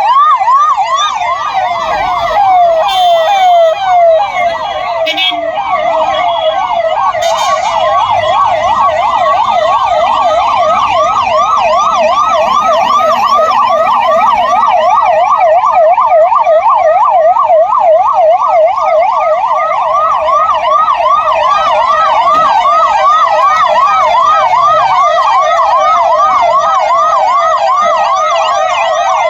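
Electronic emergency siren on a fast yelp, its pitch sweeping up and down about three times a second without a break. A few brief knocks sound in the first eight seconds.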